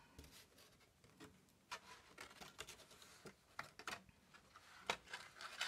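Faint rustling and light taps of a cut-paper layer being handled and pressed down into a paper shadow box frame: a scatter of short, soft clicks and scrapes.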